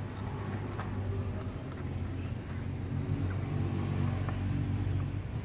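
A motor running steadily with a low hum, with a few light clicks and taps over it.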